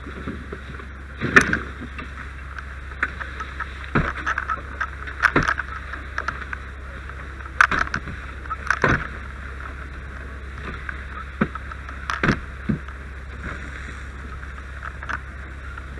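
Irregular knocks and crunches of charred shed wood being struck and pulled with a long-handled firefighting tool, about half a dozen loud ones among smaller taps, over a steady hiss and low hum.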